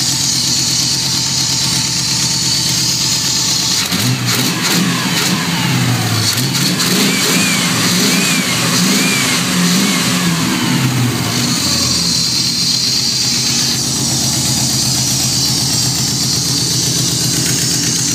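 Cammed 5.0 small-block V8 in a third-generation Chevrolet Camaro idling, then revved up and down several times for a few seconds before settling back to idle. It now holds an idle after its vacuum leaks were cured, an idle the owner guesses is still a bit high.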